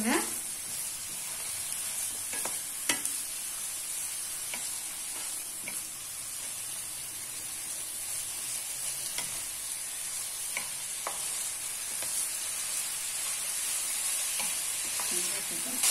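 Sliced vegetables sizzling as they sauté in hot oil in a kadai, stirred with a wooden spatula that now and then scrapes and knocks against the pan.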